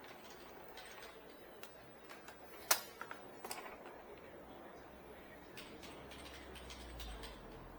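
Epson L120 inkjet printer running its power-on print-head cleaning cycle: scattered clicks and ticks from the mechanism, one sharp click about three seconds in, and a low hum near the end.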